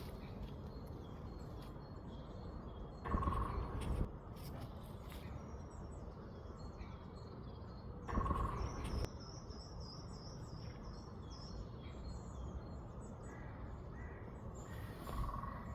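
Birds calling over steady low background noise: faint high chirps from small birds, and three louder calls spaced about five seconds apart.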